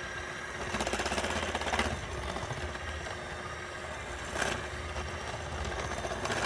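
Electric hand mixer running steadily, its beaters working pumpkin cookie dough in a bowl.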